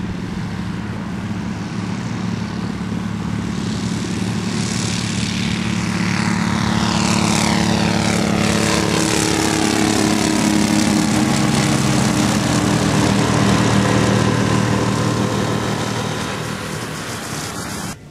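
Ultralight aircraft's four-stroke 992cc Generac industrial engine driving a large pusher-free propeller at full power, growing louder as the aircraft takes off and flies past close by, with a whooshing sweep that falls in pitch as it passes, then easing off and cutting off near the end.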